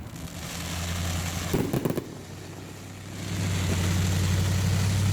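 Engine running steadily with a low hum, growing louder about three seconds in, with a brief cluster of sharp cracks about one and a half seconds in.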